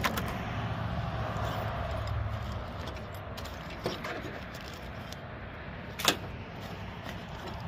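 Hands handling plastic chainsaw parts and packaging, with light knocks and one sharp click about six seconds in, over a low rumble that fades after the first few seconds.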